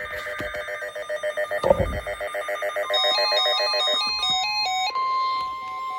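Emergency Alert System tones from several stations sounding at once. Rapid chirping digital header bursts fill the first few seconds, then tones step up and down. A steady alert tone comes in strongly about five seconds in.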